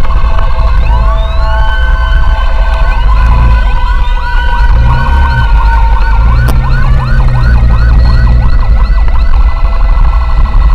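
Several electronic emergency sirens sound together, among them an ambulance's. First come rising wails and held tones, then a fast yelp from about six seconds in, over a steady low rumble.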